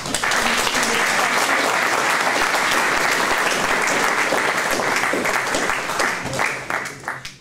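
Audience applauding in a room. The clapping is dense and steady at first, then thins to a few scattered claps near the end.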